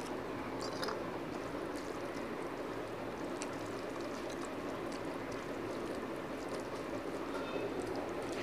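Dal poured from a steel bowl onto rice near the start, then scattered light clicks as fingers mix rice on a steel plate, over a steady background hiss.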